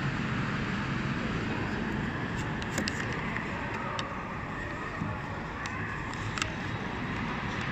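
Steady background din of a busy public space, with a few light clicks and knocks as the phone filming is set in place. There is no music yet.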